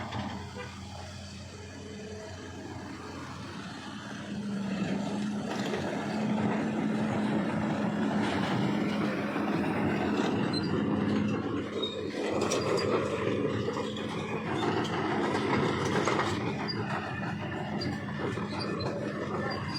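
Vehicle engines running with a steady low hum, the rumble of traffic or heavy machinery getting louder about four seconds in and staying up.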